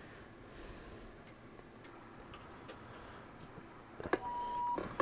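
Faint clicks of switches on a CB radio test bench. About four seconds in, a click and then a steady high beep of about half a second, a second click, and a second, shorter beep.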